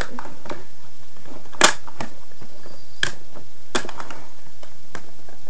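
A few sharp plastic clicks, the loudest about one and a half seconds in and two more near three and four seconds: eyeshadow compacts being handled and knocking together.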